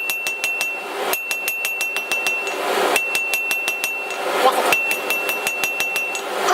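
Rapid light hand-hammer blows on hot mild steel over an anvil, in four quick runs of about seven or eight strikes a second, the anvil ringing a steady high tone through each run: planishing dents out of the drawn-out handle.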